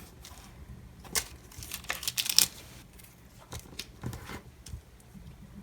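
Washi tape rolls and paper being handled on a desk: a series of short rustles, crinkles and light clicks, the loudest cluster about two seconds in.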